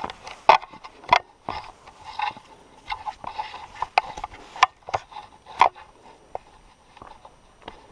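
A hiker's footsteps climbing a rocky, stepped trail: irregular sharp knocks and scrapes of boots on stone, about one or two a second, the loudest near the start and about four and a half and five and a half seconds in.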